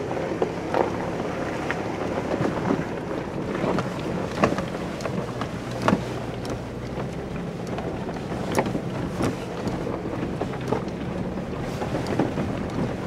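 Off-road vehicle crawling up a rocky trail: the engine runs steadily while the tyres grind over loose stones, with frequent short knocks and rattles as the vehicle jolts over the rocks.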